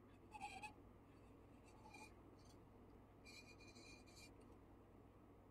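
Faint scratching of a Sharpie marker tip drawing on a painted terra cotta pot, in a few short strokes, the longest about three seconds in.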